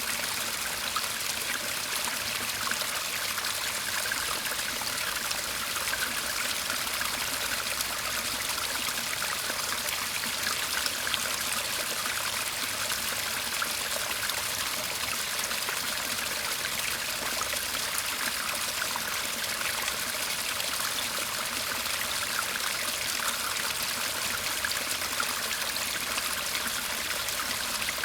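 Shallow garden stream murmuring and trickling steadily.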